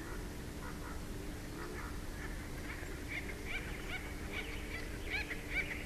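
Bald eagles calling at the nest: a series of short, high, piping chirps that come thicker and louder after about two seconds, over a steady low hum.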